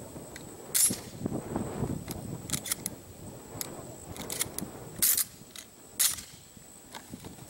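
Shotgun shells being pushed one by one into the magazine tube of a Remington 1100 12-gauge semi-automatic shotgun: a series of sharp clicks, the loudest about a second in and again around five and six seconds in.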